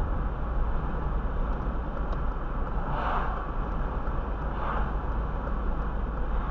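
Steady road and tyre noise of a car cruising at about 30 mph, heard from inside the cabin, with the brief whoosh of oncoming cars passing twice, about three seconds in and again just under five seconds in.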